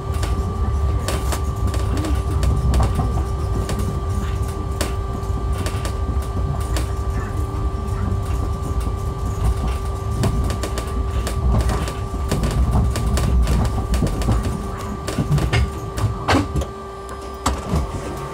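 Ride inside a battery-electric Heathrow ULTra pod: a low rumble of its rubber tyres on the concrete guideway under a steady two-note electric whine, with frequent clicks and rattles from the cabin. The rumble drops away about seventeen seconds in as the pod comes to a stop at the station.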